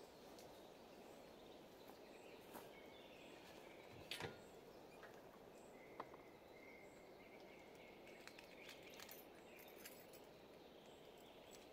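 Near silence: faint outdoor ambience, with a couple of small clicks about four and six seconds in and a faint thin high note now and then.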